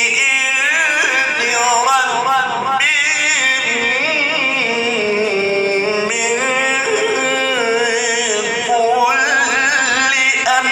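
A man reciting solo in a melodic, ornamented Islamic recitation style through a microphone, with wavering turns of pitch and long held notes. There is a short break near the end.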